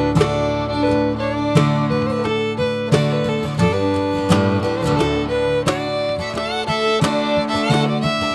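Background music: acoustic guitar with a fiddle playing a bluegrass-style melody.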